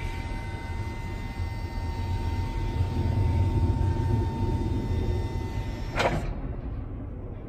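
Electric hydraulic pump motor of a Raymond 4000 lb walkie stacker running with a steady whine as it lifts the forks up the mast, over a low rumble. About six seconds in a short burst of noise comes and the whine cuts off as the lift stops.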